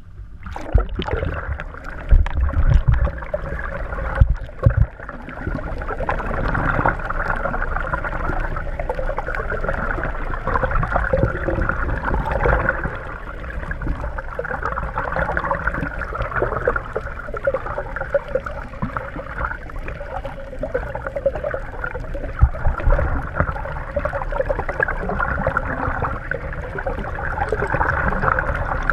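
Muffled water noise picked up by a camera held under the surface: a steady gurgling rush of water over the housing. It starts suddenly as the camera goes under, with a few heavy low thumps in the first few seconds.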